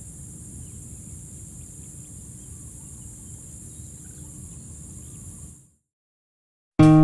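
Outdoor field ambience: insects trilling steadily in a high, even band over a low background rumble, with a few faint bird calls. It stops about five and a half seconds in.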